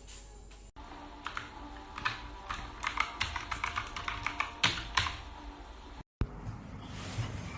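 Typing on an HJK917 mechanical keyboard with blue switches: irregular, sharp key clicks. The sound breaks off abruptly twice and resumes at once.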